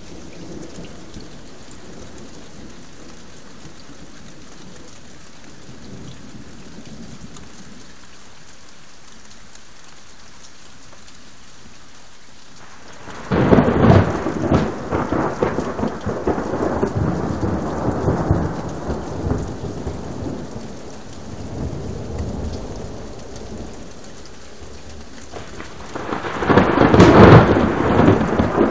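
Thunderstorm: a steady hush of rain, then a sudden loud thunderclap about halfway through that rolls on for several seconds. A second loud rumble of thunder comes near the end.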